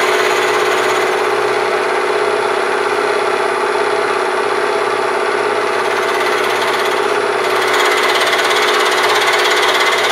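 Vertical milling machine running steadily while taking a light cut of about five thousandths across a cast iron casting, a constant whine over the noise of the cut.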